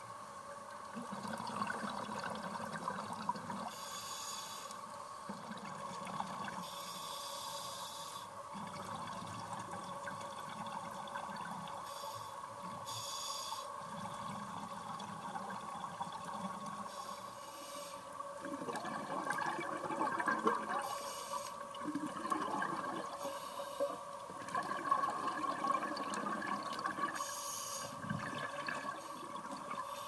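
Scuba breathing heard underwater: a regulator's hiss on each inhale alternating with the low bubbling rumble of exhaled air, in a slow repeating cycle every few seconds, over a steady faint hum.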